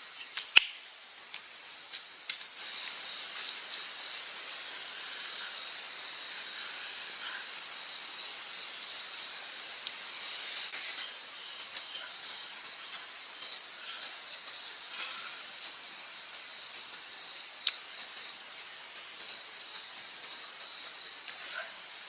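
Insect chorus of crickets or cicadas buzzing steadily on one high pitch, with a few sharp clicks, the loudest ones just after the start and again about 18 seconds in.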